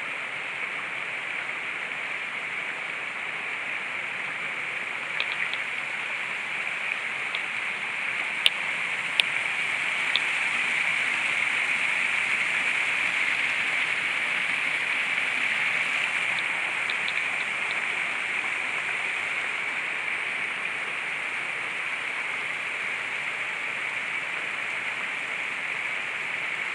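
Small rocky brook splashing over boulders in a little cascade: a steady rush of water that swells somewhat about halfway through, with a few short sharp clicks.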